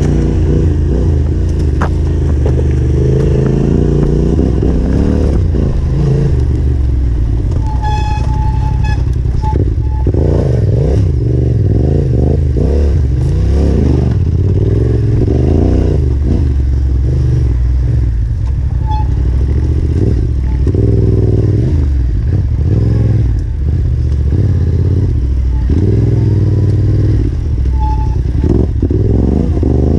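Yamaha Ténéré 700's parallel-twin engine running loud and close, the revs rising and falling as the throttle is opened and rolled off over and over. A brief high tone sounds about eight seconds in.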